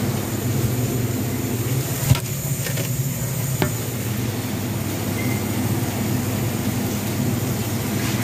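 A steady low hum or rumble, with two sharp clicks about two and three and a half seconds in.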